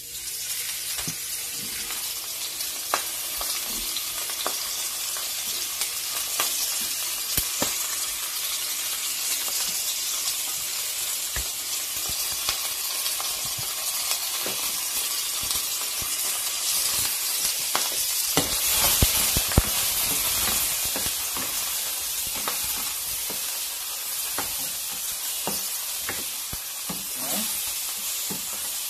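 Shrimp sizzling in olive oil in a hot nonstick frying pan: a steady frying hiss that starts as they go into the pan, with scattered clicks and scrapes of a silicone spatula stirring them.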